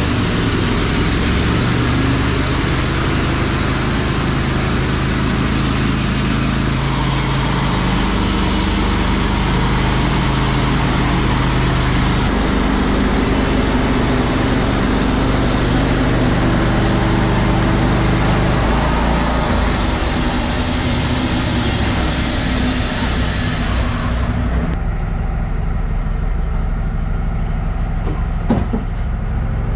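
Wood-Mizer LT15 Wide portable bandsaw mill running, its engine driving the band blade through an ash log. The engine note shifts a few times. About 25 seconds in the higher hiss drops away, leaving the lower engine sound.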